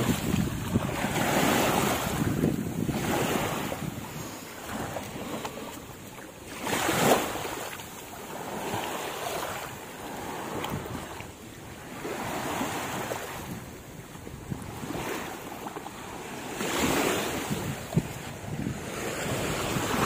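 Waves washing up on the shore, swelling and ebbing every couple of seconds, with wind buffeting the microphone; one louder wave surges about seven seconds in.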